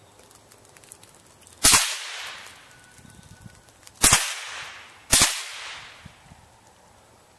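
Three shots from a Savage Model 64 .22 LR semi-automatic rifle, each a sharp crack followed by a fading echo. The first comes about a second and a half in, then two more about two and a half seconds and one second apart.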